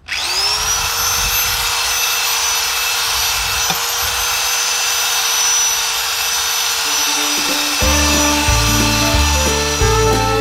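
Corded power tool with a circular abrasive brush spinning up quickly to a steady high whine and scrubbing the bronze propeller clean. About three-quarters of the way through, background music with a steady bass line and plucked strings comes in over it.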